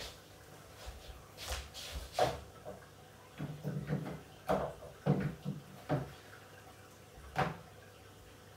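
Footsteps, then an irregular series of knocks and bumps as things are handled and moved about at a cabinet across the room.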